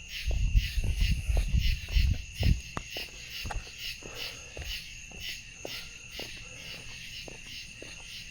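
Night insect chorus: a steady, high, pulsing trill. Footsteps sound about twice a second, and low rumbles come and go in the first few seconds.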